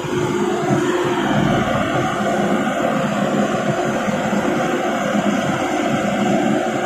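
Hitachi EX200 hydraulic excavator's diesel engine running steadily, working the hydraulics to hold and carry a large boulder in its bucket.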